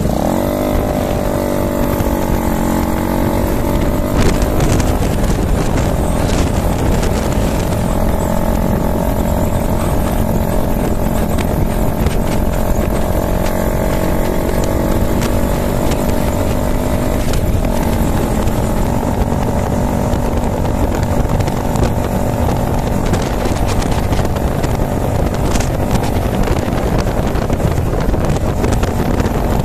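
Cruiser motorcycle engine running under way, with a steady rush of wind and road noise. The engine note dips and then climbs again in the first few seconds, and steps to a new pitch a little past halfway.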